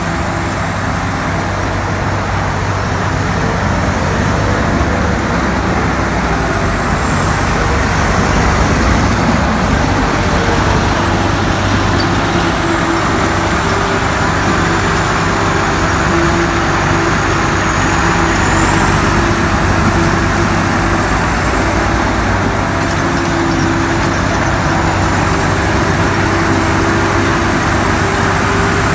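Rice combine harvester running steadily: a continuous engine hum under a loud rushing blower noise, with a thin high whine that drifts slightly up and down in pitch.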